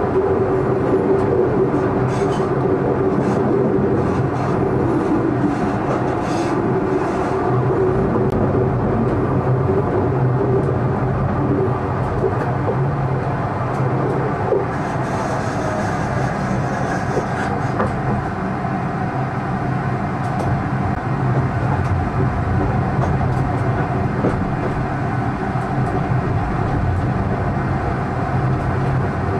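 Tram running along the track, heard from the driver's cab: a steady hum with wheel-on-rail noise, and a run of clicks over rail joints in the first several seconds.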